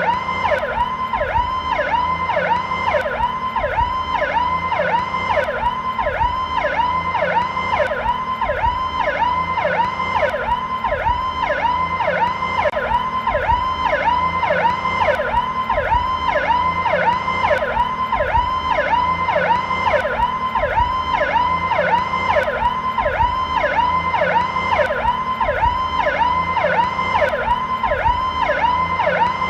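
American police electronic siren on its Powercall tone, slow version: a loud pitched sweep that dips and climbs back, repeated evenly about twice a second.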